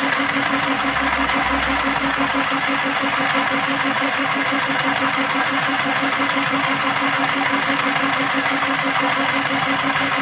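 Mini portable sewing machine running steadily with a fast, even pulsing rhythm as it winds the bobbin.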